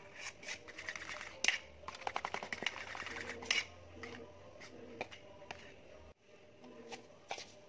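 Metal fork stirring and beating wet banana-oat pancake batter in a stainless steel bowl: rapid clicking and scraping of the fork against the bowl, with a few louder knocks of the fork on the rim.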